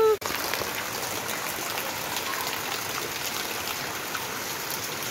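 Steady rain falling on wet concrete ground: an even hiss with many small drop ticks.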